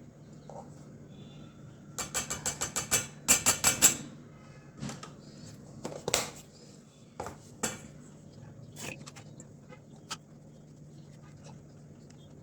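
A metal spoon tapping and clinking against a bowl while cocoa powder is spooned in. There are two quick runs of rapid taps about two seconds in, then scattered single clinks.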